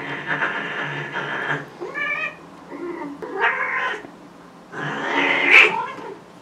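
Cats caterwauling during a mating tussle between a female in heat and a neutered tom holding her by the scruff: about four long, wavering yowls, the loudest near the end as the two break apart.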